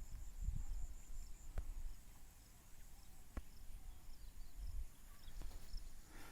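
Birds chirping faintly outdoors: short, high chirps repeated about two or three times a second over a steady high-pitched buzz. A low rumble of wind on the microphone and a few soft clicks run underneath.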